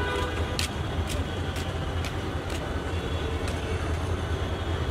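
Diesel-electric locomotive standing with its engine idling, a steady low rumble, with sharp clicks high up about once a second.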